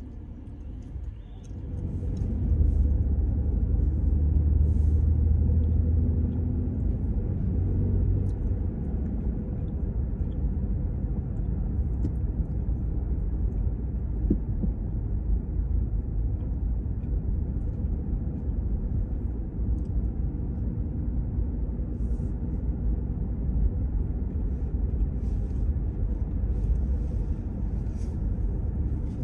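A car driving on city streets, with a steady low rumble of engine and tyre noise. The rumble grows louder about two seconds in as the car picks up speed, then levels off.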